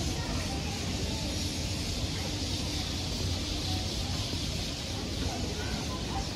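Steady outdoor street ambience while walking: a low rumble under an even hiss, with no single sound standing out.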